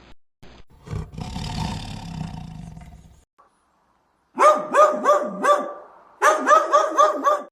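Animal calls: a rough growl, then two quick series of repeated pitched yelping calls, about five a second.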